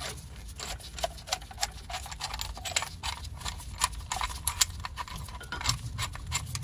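Irregular metallic clicks and ticks, a few a second, from a screw-type brake caliper piston compression tool being unscrewed and worked off the caliper, over a low steady hum.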